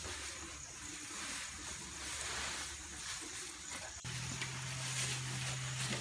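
A cow feeding on freshly cut fodder grass in a trough, with a soft rustling of the grass and faint crunches from its chewing, over a steady low hum that gets louder about four seconds in.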